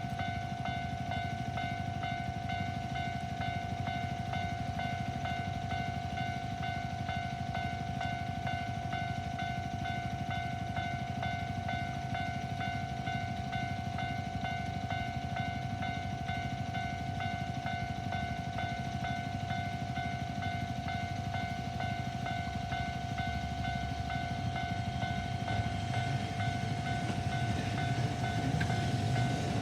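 Japanese railway level-crossing alarm ringing a steady electronic tone, over a low rumble that grows louder in the last few seconds as a train approaches.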